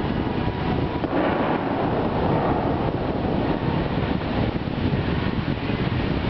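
Steady rushing noise with wind buffeting the microphone.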